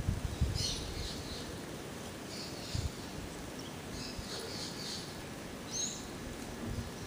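Garden ambience with small birds chirping in short scattered bursts and one curved whistled note near six seconds, over a steady hiss. Low gusts of wind hit the microphone in the first second and again near three seconds.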